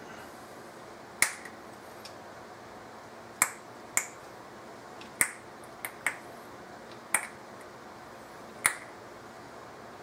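Sharp, short clicks at irregular intervals, about eight in all, from handling a distributor cap while dielectric grease is dabbed onto its terminals.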